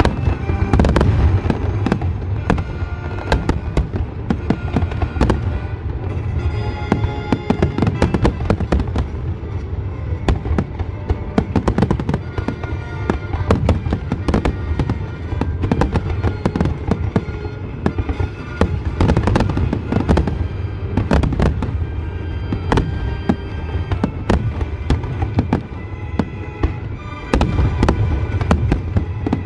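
Fireworks barrage: aerial shells bursting one on top of another in a dense, continuous run of bangs and crackles, with music playing underneath.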